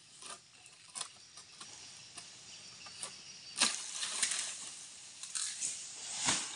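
Rustling and scraping of oil palm fronds and trunk as a harvester climbs the palm, with a few sharp clicks and two louder rustling bursts, about three and a half and six seconds in.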